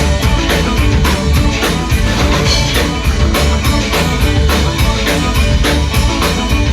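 Loud rock music with a fast, steady drum beat and guitar.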